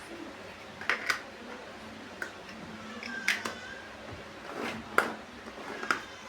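Plastic building bricks being handled and pressed together: about half a dozen scattered sharp clicks and light taps at uneven intervals, over a faint steady hum.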